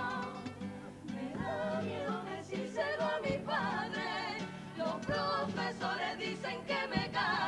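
A Cádiz carnival comparsa performing: a chorus singing in harmony with vibrato over guitar accompaniment, with a few drum hits.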